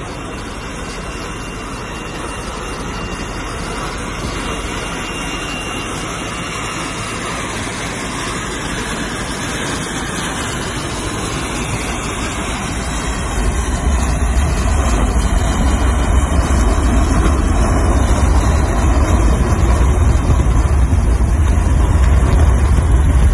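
Helicopter in flight, heard from on board: a steady rushing noise of engine, rotor and wind. It grows louder, and a heavy low rumble comes in about halfway through.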